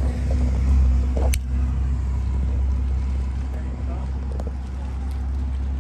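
Steady low rumble of road traffic on the highway bridge alongside, with one sharp click about a second and a half in.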